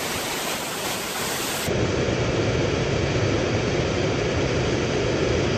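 Waterfall's steady rush of falling water, cut off abruptly under two seconds in by a different, lower-pitched steady rushing noise.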